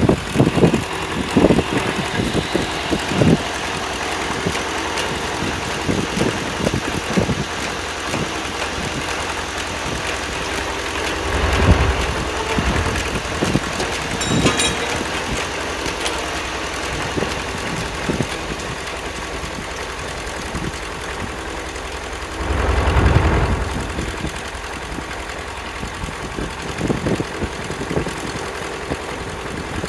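Engine running steadily, driving an antique Corley sawmill's spinning blade, with a rapid even firing beat. Two brief louder low rumbles come through, about 12 seconds in and again about 23 seconds in.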